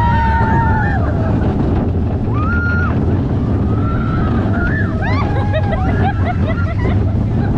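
Junior roller coaster ride with the wind rushing over the microphone and the train rumbling. High-pitched screams and squeals from the riders come and go, with a quick flurry of them about five seconds in.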